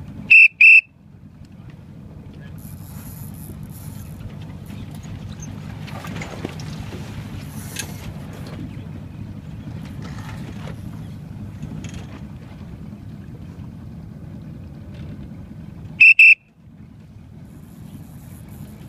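Motorboat's outboard engine running steadily under way, with wind and water noise. Twice, about half a second in and again near the end, a loud high-pitched double blast cuts in briefly.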